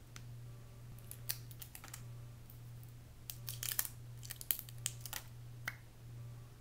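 Small plastic eyeliner-pencil packaging being pried and twisted open by hand: irregular clusters of sharp clicks and crackles starting about a second in, thickest in the middle and ending with a single click near the end, over a steady low electrical hum.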